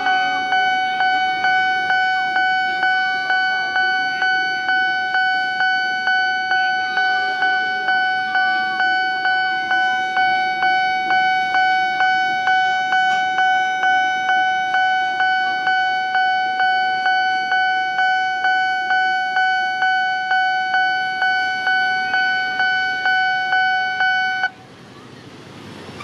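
Railroad level-crossing warning bell ringing in even strokes about twice a second, then cutting off suddenly near the end as the crossing clears after the train. Road traffic runs faintly underneath.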